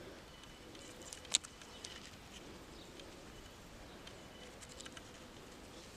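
Quiet outdoor ambience with a few short, faint, high thin notes and scattered small ticks, and one sharp click about a second and a half in.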